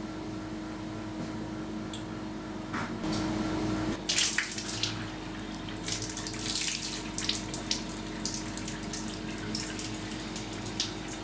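Water running from a tap into a sink, with irregular splashes from about four seconds in, over a faint steady hum.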